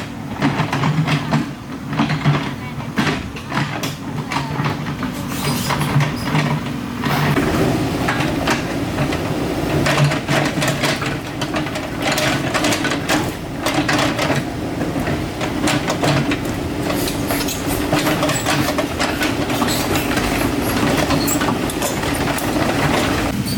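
Excavator's diesel engine running steadily, with many knocks and clanks of the tracks and bucket working over soil and rock. The clatter grows busier about seven seconds in.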